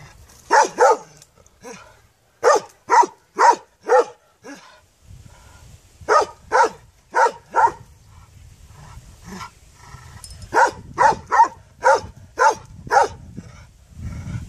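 A large white dog barking in short runs of two to six barks, about two barks a second, with pauses of a second or two between runs.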